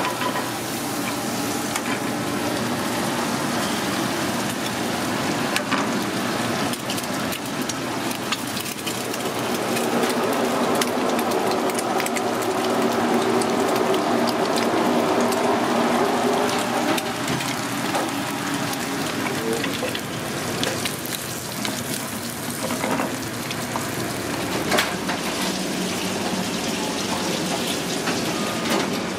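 Butter and eggs frying in a skillet on a gas range: a steady crackling sizzle with scattered sharper pops.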